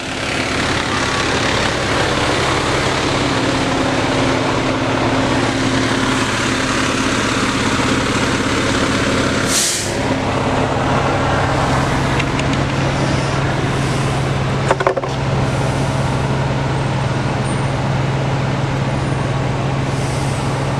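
A fire engine's diesel engine running steadily with a low, even hum, and a brief sharp hiss about ten seconds in.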